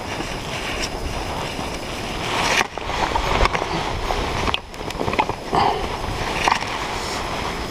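Rumbling noise of wind and clothing rubbing on a body-worn camera's microphone, with scattered small clicks and knocks and two brief sudden drops.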